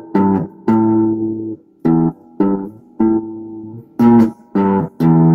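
Electric guitar played by a beginner: a halting run of about eight plucked notes, each one stopped short before the next.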